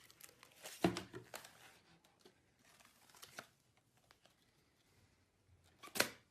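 Slime being handled by hand, giving faint, short crackly squishes: a few about a second in and a louder one near the end.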